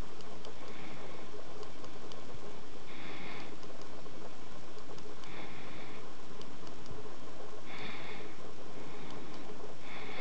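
Faint small clicks of an iPhone's volume buttons being pressed to key Morse code, over room noise. A soft hiss of about half a second comes five times, roughly every two to three seconds, and is the loudest thing heard.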